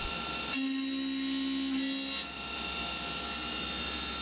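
CNC milling machine cutting metal with an end mill under flood coolant, taking a light pass at a fast feed: a steady machining whine. A stronger steady tone comes in about half a second in and stops about two seconds in.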